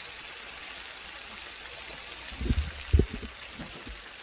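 Marbled beef ribeye sizzling on a tabletop grill plate, a steady hiss. A few dull thumps come a little past halfway, the loudest just before three seconds in.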